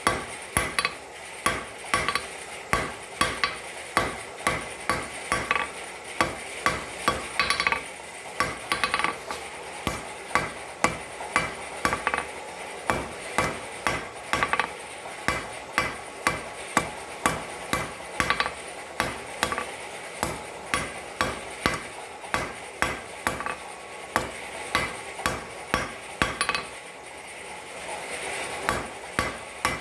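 Hand-forging steel on an anvil: a hammer strikes about two to three times a second, each blow a sharp clang with the anvil ringing after it, and there is a short break near the end.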